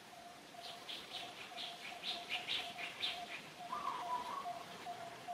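Birds chirping: a quick run of high chirps, about three a second, for the first three seconds, then a lower warbling call about four seconds in, over a steady faint background tone.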